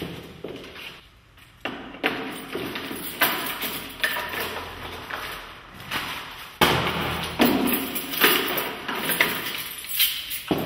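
Wall-mounted wooden mailboxes being opened and emptied: a string of irregular knocks and clatters, sharper and louder from a little past halfway.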